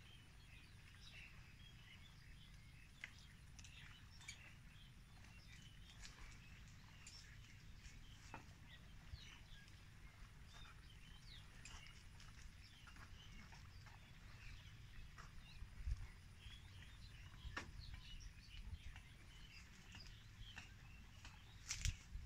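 Near silence: faint outdoor ambience with scattered high chirps and ticks over a low rumble, and a couple of soft thumps near the end.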